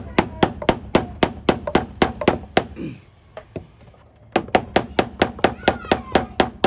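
A hammer driving a cable staple into a wooden beam to fasten a cable, in quick, evenly spaced strikes about three a second. The hammering stops about three seconds in and starts again a little faster just after four seconds.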